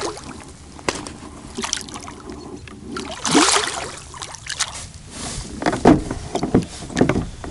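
A hooked catfish thrashing at the surface beside a kayak while it is being landed: irregular splashes, the loudest about three and a half seconds in.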